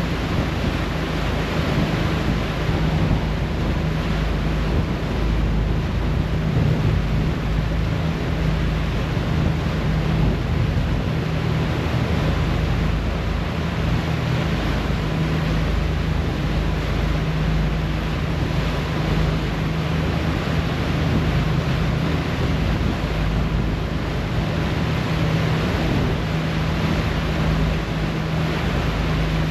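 Ferry's propeller wash churning in the wake behind the stern, over a steady low engine drone and wind buffeting the microphone.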